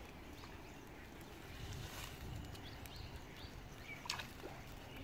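Quiet rural outdoor background with a few faint, short animal calls scattered through it.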